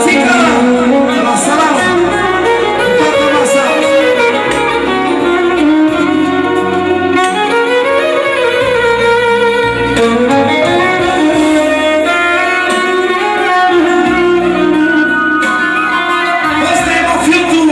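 Electric violin playing a lead melody with pitch slides, over keyboard accompaniment with a bass line, live band music.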